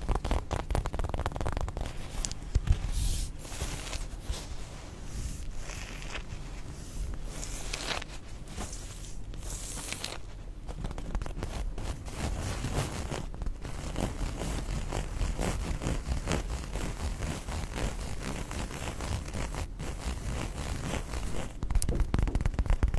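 Close-miked rough scraping and rubbing, fast repeated strokes of hard surfaces against each other as an ASMR trigger, densest and brightest in the first ten seconds.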